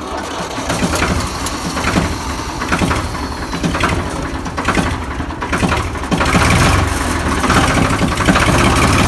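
Ford tractor's diesel engine running, heard from the driver's seat with the engine just ahead, as the tractor moves off along the field edge. The engine grows louder about six seconds in as it takes more throttle or load.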